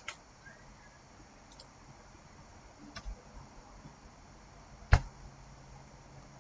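A few separate clicks of a computer mouse over quiet room tone. The sharpest and loudest click comes about five seconds in.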